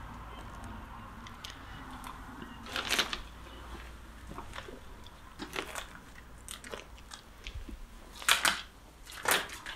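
Footsteps crunching on grit and rubble on a concrete floor. Irregular crunches, with louder ones about three seconds in and twice near the end.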